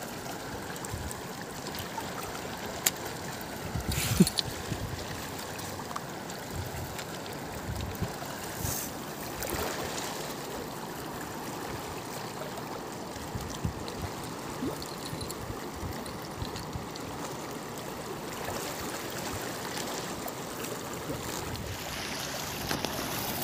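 Steady rush of a flowing river. A few light knocks and rustles in the first ten seconds, from hands working a cast net over wet stones.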